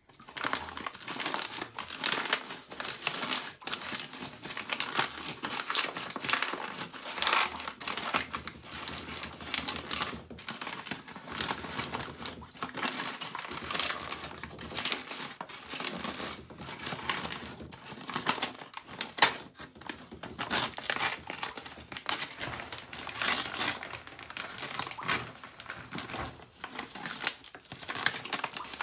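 Paper bag crinkling and rustling in the hands, handled close up as it is scrunched and opened, in a dense run of irregular crackles.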